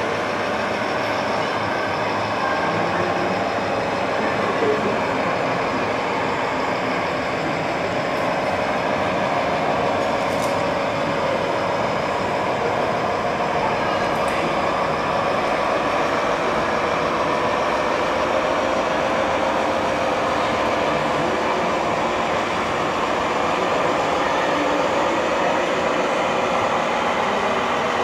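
Radio-controlled model trucks running: a steady, unbroken whine of small electric motors and gearboxes over a haze of noise.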